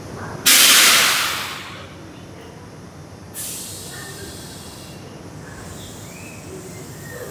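Compressed air hissing from a Kintetsu commuter train's air brakes: a sudden loud burst about half a second in that fades away over a second, then a shorter, quieter hiss about three seconds later, over a low rumble.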